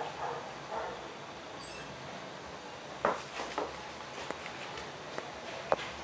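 Schnauzer whining briefly at the start, then a few sharp knocks as it tugs and wrestles with a stuffed toy, the loudest near the end.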